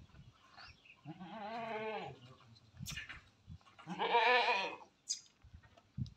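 Beetal goat bleating twice, each a quavering call about a second long, the second louder.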